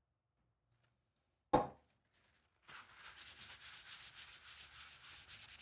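A single short knock, then a cloth rag rubbed quickly back and forth over an oil-finished maple board, about four or five strokes a second, scrubbing at a sauce stain.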